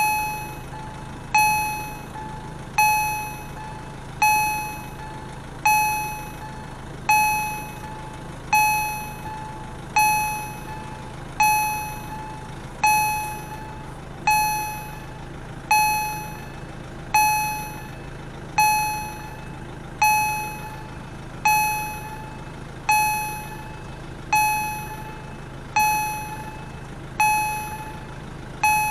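Railway level-crossing warning bell striking steadily, about once every one and a half seconds, each strike ringing out and fading before the next, over a steady low hum.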